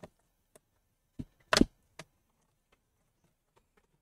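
Scattered light knocks and clicks of gloved hands handling a laptop's bottom cover, the loudest a quick double knock about a second and a half in.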